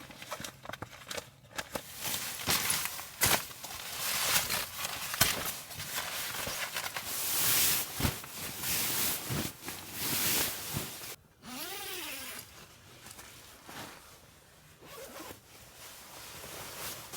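A zipper pulled open and shut in a series of quick, uneven strokes, then a short squeak that rises and falls about eleven seconds in.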